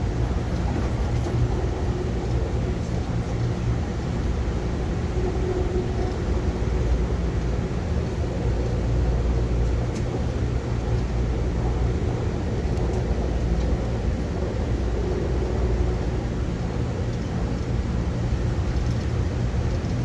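Steady low rumble of a moving vehicle, with a faint low hum running through it.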